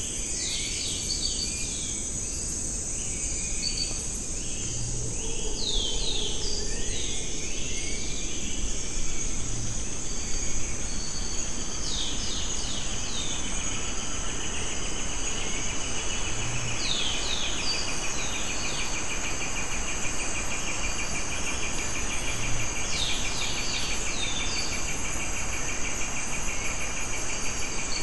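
Rainforest insects and birds: a steady high insect drone, with bird calls in groups of three or four quick falling notes every few seconds. A fast pulsing insect trill joins about halfway through.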